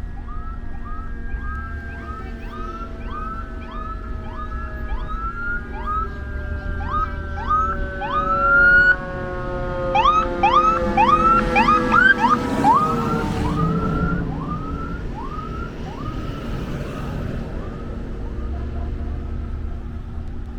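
Emergency vehicle sirens on a fast repeating yelp, rising sweep after sweep, getting louder as they pass, with two sirens overlapping for a few seconds about halfway through, over the low rumble of vehicles.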